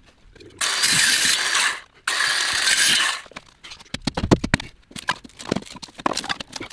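A power tool run in two bursts of about a second each, followed by a series of knocks and clatter.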